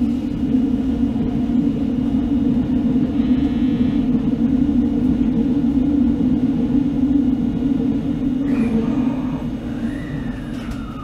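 Inside an electric commuter train: steady low rumble of the car as it moves off after an emergency stop. Near the end a whine slides down in pitch.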